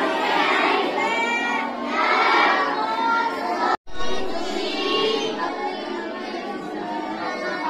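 Many children's voices at once, a roomful of boys reciting aloud together with their voices overlapping. The sound breaks off for an instant a little before the middle, then resumes.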